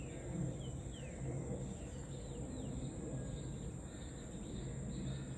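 Evening outdoor ambience: a steady high-pitched insect trill, with a few short, falling bird chirps in the first couple of seconds, over a low background rumble.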